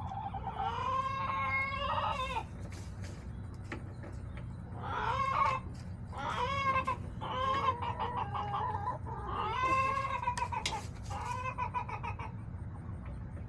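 Backyard chickens calling: about six drawn-out, pitched calls, each a second or two long, over a steady low hum.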